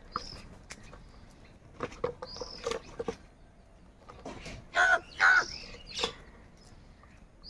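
Several crows cawing: scattered harsh caws, the loudest two in quick succession about five seconds in, with a few short, higher-pitched calls between them.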